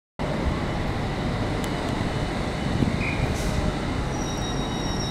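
Heathrow Express Class 332 electric multiple unit starting away from the platform: a steady rumble of the train and the station under its roof, with a high, steady whine that comes in about four seconds in.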